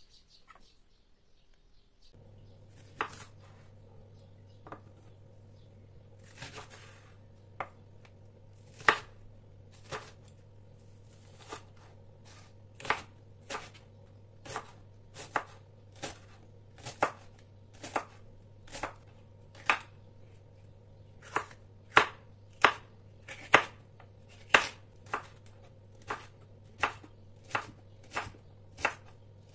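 Chef's knife chopping vegetable stalks on a wooden cutting board: a few separate knocks at first, then a steady run of cuts, about one or two a second. A faint steady hum sets in underneath about two seconds in.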